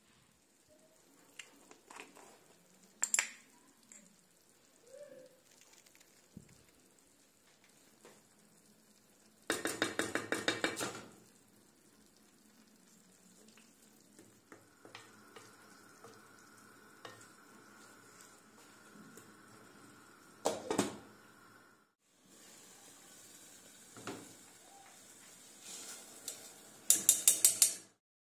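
Cooking in pots: a spoon clinks on the pot, faint sizzling, and a wooden spoon stirs and scrapes diced vegetables and meat in a pot in a quick run of strokes. Near the end a wooden spoon stirs rapidly against a stainless steel saucepan, the loudest part.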